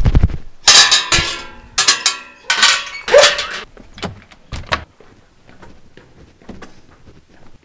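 A run of loud clattering knocks as doors and handles are worked, including the handle and latch of an aluminium-framed glass door, then lighter clicks and steps near the end.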